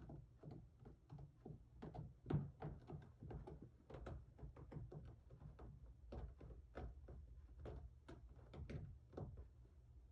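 A cat scratching at a cat tower: a quick, irregular run of faint scraping strokes, several a second, with the loudest about two and a half seconds in, stopping shortly before the end.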